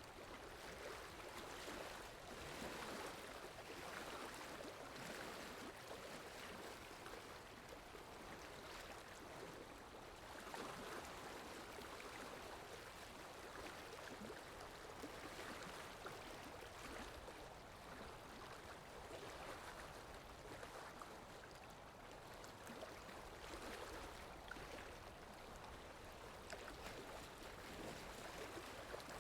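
Faint, steady sea water washing and lapping, swelling gently every few seconds.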